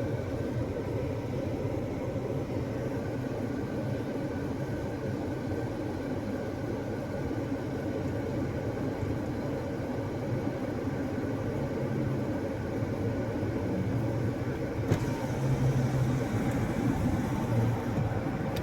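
A 2022 Jeep Grand Cherokee running with its air conditioning on during a refrigerant recharge: a steady low rumble of the idling vehicle and blower. A sharp click comes near the end, after which it runs a little louder.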